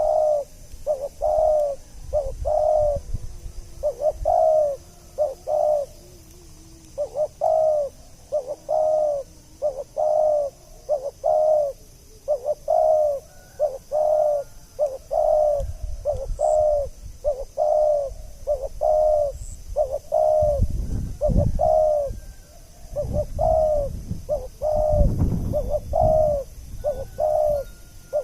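Spotted dove (tekukur) cooing over and over, a steady run of short low coos at about one to two a second. Low rumbling noise sits beneath the calls in the second half.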